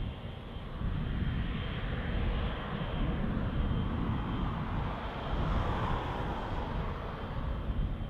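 Boeing 777 freighter's GE90 turbofan engines running at taxi power: a steady low rumble with a rushing hiss that swells briefly a little past the middle.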